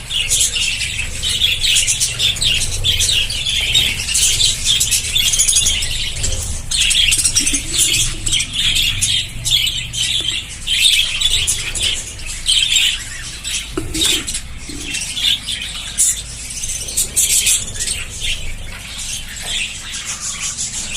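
A colony of budgerigars chattering and chirping all at once, a dense, continuous warble of many birds.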